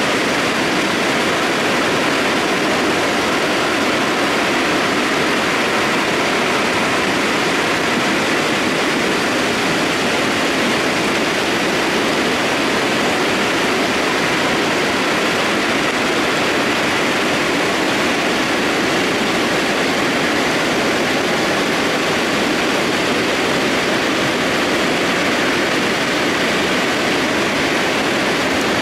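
Mudflow of rock debris and water surging down a valley, making a steady, loud rushing noise with no separate impacts standing out.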